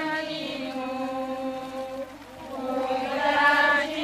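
Folia devotional chant sung in long, drawn-out notes. One note is held over the first two seconds, and a louder phrase swells about three seconds in.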